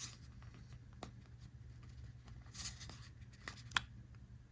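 Trading cards being handled and flipped through, with faint papery slides and a few soft clicks, the sharpest near the end.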